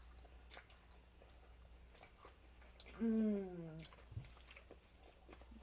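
Close-miked chewing and soft mouth clicks of someone eating a soft taco, with a drawn-out hummed "mmm" about three seconds in that falls in pitch.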